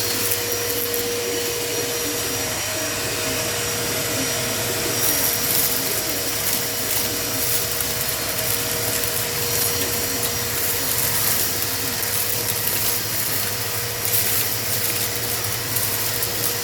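Electric vacuum cleaner running steadily with a constant whine, sucking up dust and feathers from the floor of a pigeon loft.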